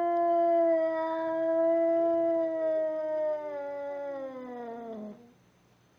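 Domestic cat's angry yowl: one long, drawn-out call held steady, then sliding lower and stopping about five seconds in, with a fainter wavering call overlapping it midway.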